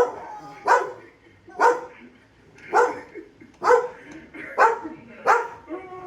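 A dog barking repeatedly, seven sharp barks about a second apart.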